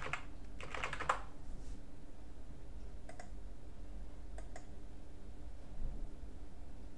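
Computer keyboard typing, a quick run of keystrokes for about a second, then two pairs of sharp clicks about three and four and a half seconds in, typical of mouse clicks.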